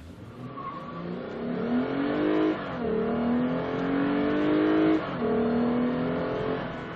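2014 Lexus IS 350 F Sport's 3.5-litre V6 at full throttle from a standstill, heard from inside the cabin: the engine note climbs steadily, drops with quick upshifts of the eight-speed automatic about two and a half and five seconds in, and climbs again. Near the end the throttle is lifted at 60 mph and the engine sound falls off.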